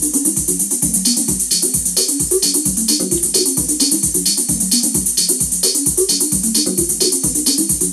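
Techno drum pattern playing from a Native Instruments Maschine groovebox at about 131 BPM: a kick drum a little over twice a second under busy hi-hats and a looping bass line. A brighter percussion hit joins on the beat about a second in.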